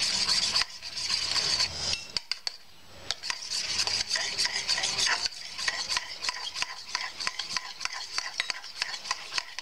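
Eggs being whisked by hand with a metal utensil in a stainless steel bowl: quick clicking strokes against the steel, with a short pause about two seconds in.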